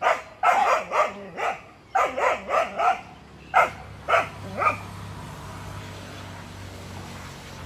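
A dog barking in quick runs of short, sharp barks, about a dozen over the first five seconds, then falling quiet; a low steady hum remains.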